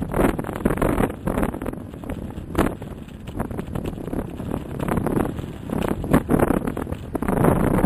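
Wind buffeting the microphone of a moving electric bike: a rushing noise that swells and drops in uneven gusts.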